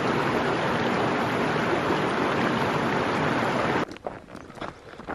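Steady rush of a rocky mountain stream flowing over boulders close by, which cuts off abruptly about four seconds in, giving way to a much quieter stretch with a few faint scuffs and knocks.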